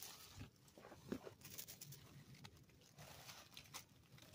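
Faint rustling and scattered small crackles of dry fallen leaves being disturbed.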